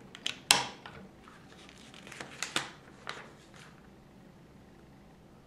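Plastic LEGO bricks clicking as they are pressed and snapped onto the studs of a small build: a quick run of sharp clicks over the first three and a half seconds, the loudest about half a second in.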